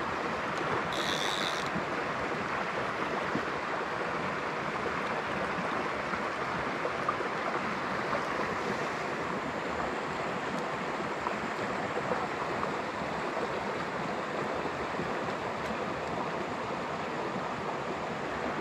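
Small mountain creek running steadily, an even rush of water over its bed.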